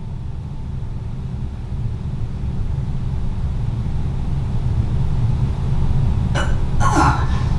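A deep, low rumble that grows slowly louder, with a few short, sharp sounds near the end.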